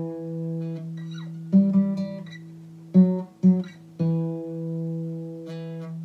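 Acoustic guitar played by a beginner, picking a slow single-note melody: a few short plucked notes, then a low note left ringing for a second or two, the phrase heard twice.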